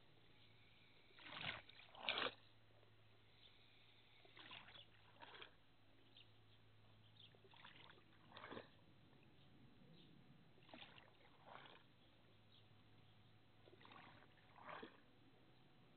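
Faint water sounds from a garden fish pond: scattered small splashes and trickling, the two loudest about a second and a half and two seconds in, over a low steady hum.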